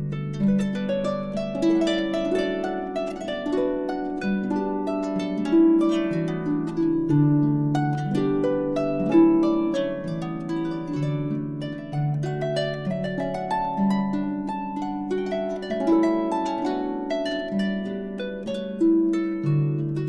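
Background harp music: a continuous run of plucked notes ringing over low bass notes.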